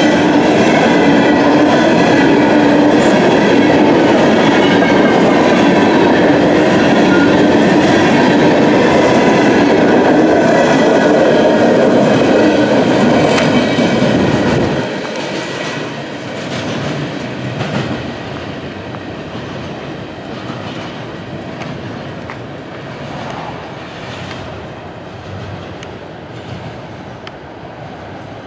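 A train of empty steel coal cars rolling past close by, the wheels running steadily on the rails with high ringing tones over the rumble. About fifteen seconds in the sound drops off sharply, then keeps fading as the train runs away.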